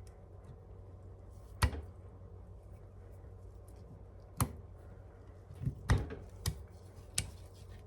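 Sharp metallic clicks and taps, about six of them spread out, as a snap ring is worked onto the pedal assembly's shaft with snap ring pliers, under a low steady hum.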